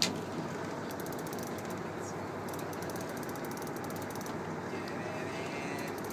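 Fishing reel clicking in quick runs as it is cranked, reeling in a hooked fish, over a steady background noise. There is a sharp knock right at the start.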